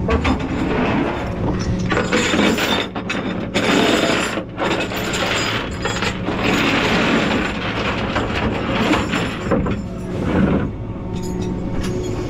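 Metallic ratcheting, clicking and clanking of tie-down rigging (a strap, its hooks and a cable) being handled against a steel diamond-plate truck deck, over a steady low hum.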